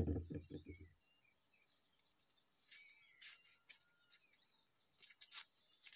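Steady high-pitched insect chorus, with a few faint crackles of a paper slip being unfolded.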